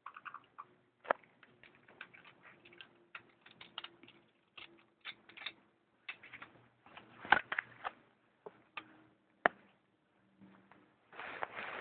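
A parrot pecking and chewing at a black plastic clothes hanger: a run of irregular clicks and taps with a few sharper knocks, and a short rustle near the end.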